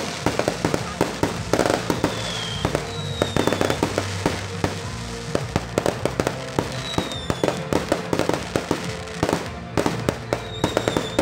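Aerial fireworks shells bursting and crackling in rapid, irregular succession, with many sharp bangs, over music playing from a stage sound system.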